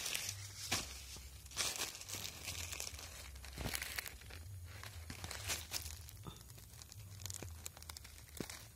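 Irregular rustling and crinkling from a hand handling the base of a chili plant among dry leaves and plastic mulch, close to the microphone, over a low rumble.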